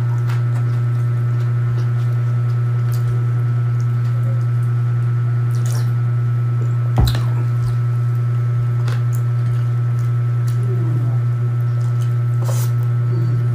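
Close-up hand-eating sounds: fingers squishing through wet kinilaw and rice, with chewing, lip smacks and small clicks, over a steady low hum. A single sharper knock comes about seven seconds in.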